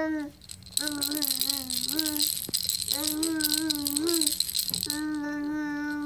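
A small rattle toy ball is shaken hard and fast by a toddler, a dense jingling rattle from about a second in until about five seconds in. Long, steady vocal notes from a voice sound along with it.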